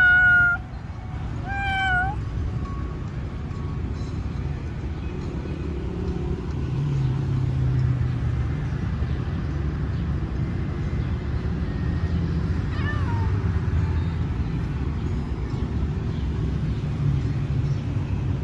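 Domestic cat meowing: two meows in the first two seconds, the second bending up and down, and a fainter, falling meow about two-thirds of the way through, over a steady low rumble.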